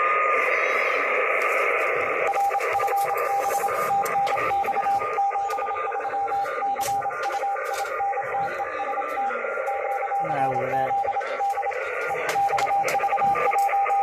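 Morse code from an amateur radio receiver's speaker: a single-pitched beep keyed on and off in dots and dashes, starting about two seconds in, over a steady band of receiver hiss. The keying pauses briefly twice near the end.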